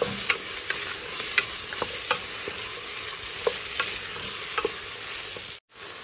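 Diced onion, carrot, potato and courgette sizzling in butter in a steel pot, stirred with a wooden spoon that taps against the pot now and then. The sound drops out for a split second near the end.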